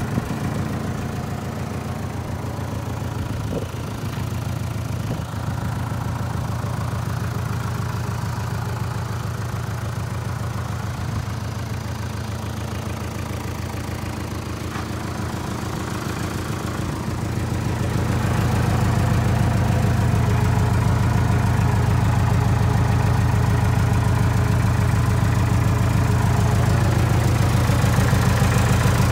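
Mitsubishi Canter truck engine idling steadily, growing louder about two-thirds of the way through.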